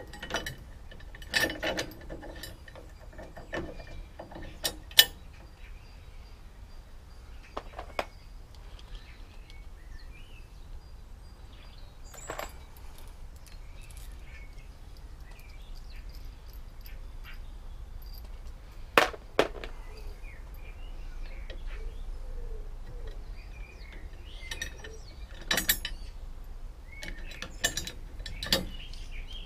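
Scattered metallic clicks and clinks of bolts, spacers and needle-nose pliers being worked in behind a steel rear crossmember, with a few sharper knocks, the loudest about five seconds in and again about two-thirds of the way through.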